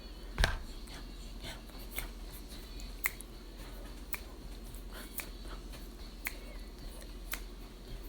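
A person eating noodles: scattered small clicks and smacks of chewing and utensils, about one a second, with one louder knock about half a second in, over a steady low hum.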